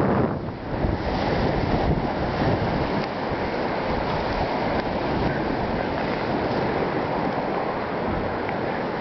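Wind buffeting the microphone in steady gusts over choppy lake water washing, with a brief lull just after the start.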